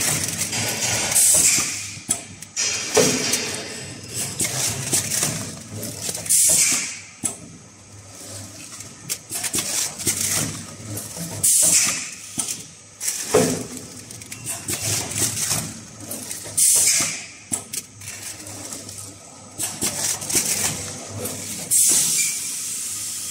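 Automatic chocolate lollipop blister packaging machine running, its cycle repeating about every five seconds with a sharp hiss of air each time.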